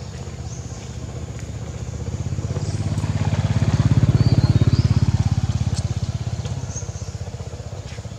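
A motor vehicle passing: its engine hum grows louder to a peak about four seconds in, then fades away.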